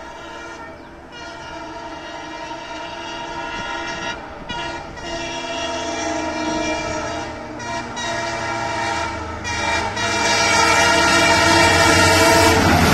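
An EMD diesel locomotive sounds its horn as it approaches at speed. The horn gives a string of long blasts with brief breaks between them and grows steadily louder. From about ten seconds in, the low rumble of the locomotive and its train swells beneath the horn.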